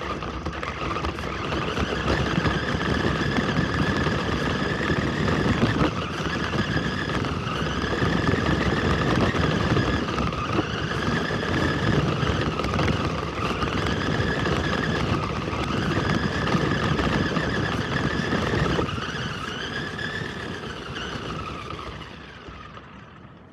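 RC car driving at speed: a motor whine that rises and falls repeatedly with the throttle over the rough rumble of its tires on a gravel road, dropping away and fading near the end as the car slows to a stop.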